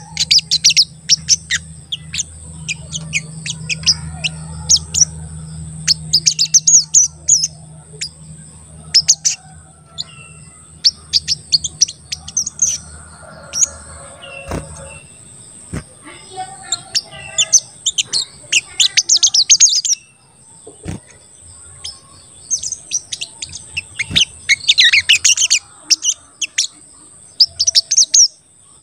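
Brown-throated sunbird (sogon) singing rapid, high 'cuit cuit' chirping phrases in repeated bursts, over a steady high thin whine. A low hum runs under the first half.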